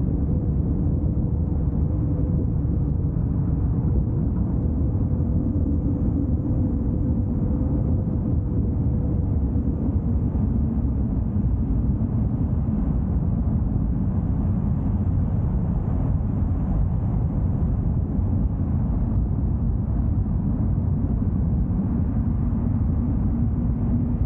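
A car driving along a road: steady low road and engine rumble, with a faint steady hum in the first half that fades out.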